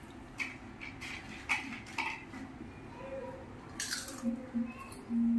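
Crisps being bitten and chewed, Kurkure corn sticks and Pringles-style potato crisps, in short scattered crunches with a light clink of a steel bowl. Near the end a loud steady hummed note starts.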